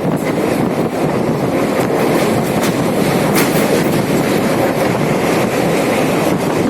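A moving train running on the track: a steady rumble with a few sharp clicks from the wheels passing over rail joints.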